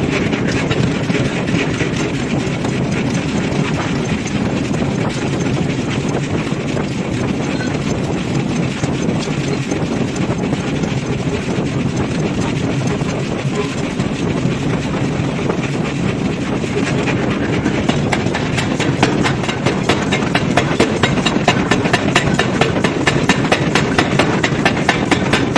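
Loud, steady industrial machinery noise of forging equipment at work. About two-thirds of the way through, a fast, even run of sharp knocks comes in and grows more distinct.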